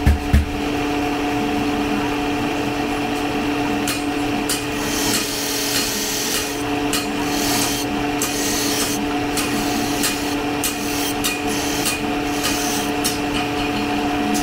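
An electric grinder grinding steel steadily, a hiss over a constant motor hum. It follows the last couple of hammer blows at the start.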